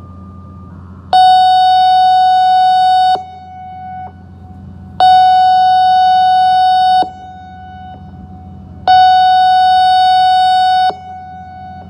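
ASC I-Force electronic outdoor warning siren sounding its test signal: three loud blasts of a single steady pitch, each about two seconds long and about four seconds apart. A fainter steady tone lingers in the gaps between blasts.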